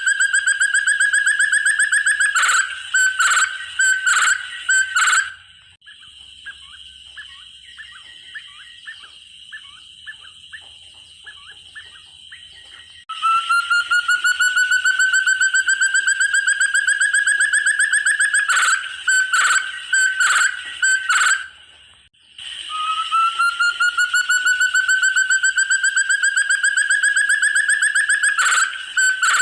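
Forest partridge (puyuh hutan, 'burung terung') call: a long run of rapid whistled notes slowly rising in pitch, closing with a few separate loud notes. The phrase comes three times, with a quieter stretch of faint chirps after the first.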